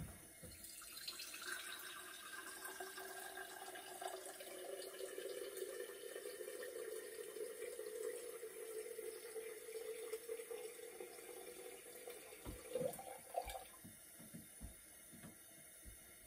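Water running steadily into a vessel for about twelve seconds, with a hollow ringing tone in the stream, then stopping. A few sharp knocks follow near the end.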